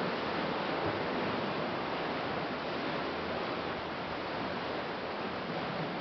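Ocean surf washing against a rocky shore: a steady, even rush with no breaks.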